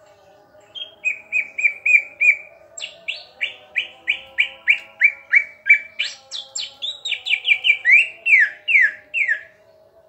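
Cucak ijo (greater green leafbird) song: a loud run of sharp, down-slurred whistled notes, two to three a second, starting about a second in and stopping shortly before the end.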